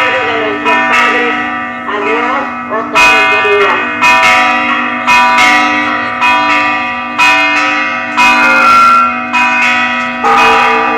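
Church bells ringing, struck about once a second with several bells of different pitch sounding together and each stroke ringing on into the next. A voice is heard over the bells in the first few seconds.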